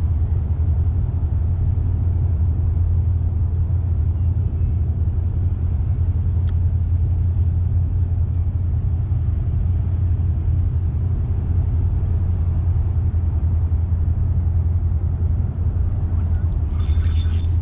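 Steady low rumble of wind on an action camera's microphone out on open water. Near the end come a few sharp clicks from handling the rod and reel as a fish takes the bait.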